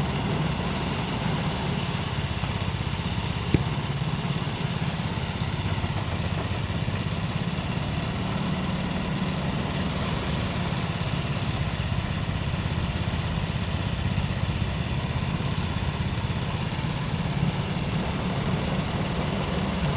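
Engine-driven rice threshing machine running steadily at an even speed, with one sharp tick about three and a half seconds in.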